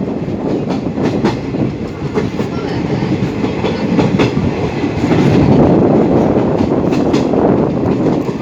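Train running along the track: a steady rumble of wheels on rails with scattered clicks of the rail joints.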